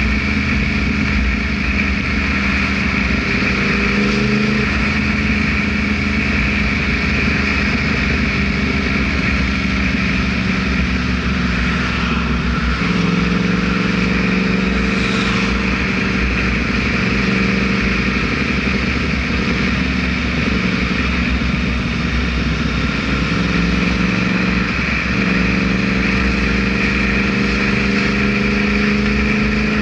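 Yamaha R1 sport bike's inline-four engine running steadily under way, over a constant rush of noise. The engine note drops a step a little before halfway and rises again about five seconds before the end.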